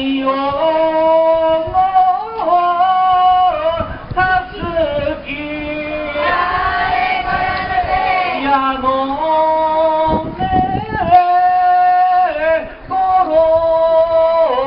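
Voice singing a slow Japanese festival song in long, drawn-out notes that step up and down with wavering ornaments. Partway through, a stretch of rougher noise joins the singing.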